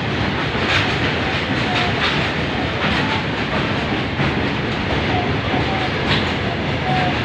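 Long freight train of covered wagons rolling past: a steady rumble of wheels on rails with repeated clacks as the wheels cross the rail joints.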